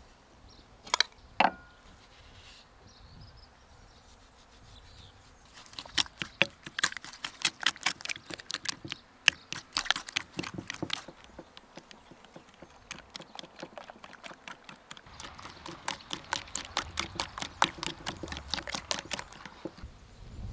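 Wooden spatula beating eggs and sugar in a glazed ceramic bowl: quick, rhythmic clicks of the spatula against the bowl, several a second, in two long bouts with a short pause between. Two sharp taps about a second in, from a metal spoon knocking on the bowl.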